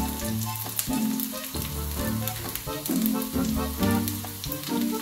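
Carrot dosa batter sizzling and crackling in oil on a hot dosa griddle as it cooks through, with background music with a bass line playing over it.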